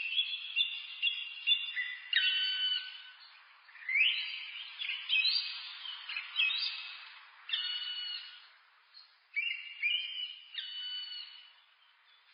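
Black woodpecker calling: runs of short, clear, ringing notes repeated in several bouts with pauses between them, growing fainter near the end.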